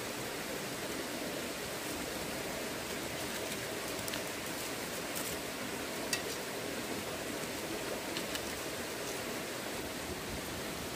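Steady rushing of a flowing stream, with a few faint clicks.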